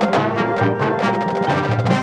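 Marching band playing: held brass chords over a quick run of sharp percussion hits.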